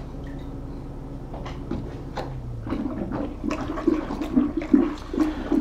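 Wort being stirred vigorously with a spoon inside a fermenter keg, the liquid sloshing and swirling to aerate it for the yeast; the sloshing starts about halfway in and grows louder, with small clicks of the spoon.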